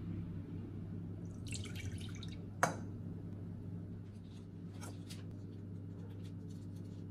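Lemon juice poured from a cup into a stainless steel pot, splashing for about a second, then a sharp clink a little past two and a half seconds in, followed by scattered drips. A steady low hum runs underneath.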